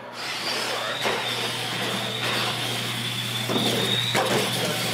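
Radio-controlled monster trucks racing a drag heat: a steady high whine from their motors and gears, with a few sharp knocks as the trucks hit the ramps and land.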